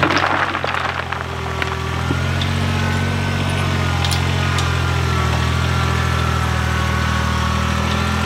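Compact loader-backhoe tractor's engine running steadily, with rocks clattering out of the front loader bucket in the first second or two.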